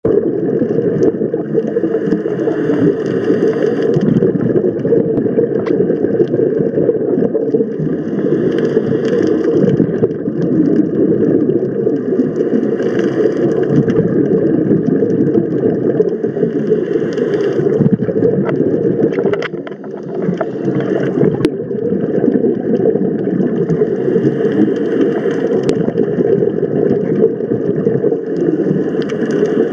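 Scuba diver's breathing through a regulator heard underwater through a waterproof camera's microphone: a steady muffled rush, with a hissing, bubbling swell about every four seconds as each breath is exhaled.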